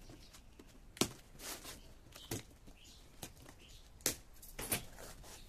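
Cardboard box being handled and pulled open by hand: about five sharp knocks and taps of cardboard, with short rustles of the box flaps and packing tape between them.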